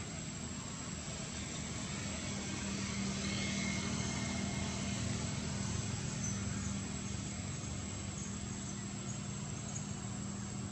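Low drone of a motor vehicle's engine, swelling a few seconds in and then easing off, over a thin steady high-pitched whine.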